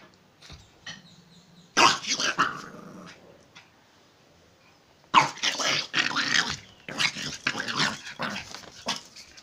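A small puppy growling and yapping in play as it nips at a person's bare feet: a short bout about two seconds in, then a longer run of growls from about five seconds on.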